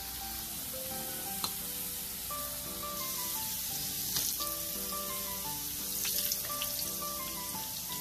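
Oil sizzling steadily in a frying pan where potato halves are frying, with a few light clicks, over soft background music carrying a simple stepping melody.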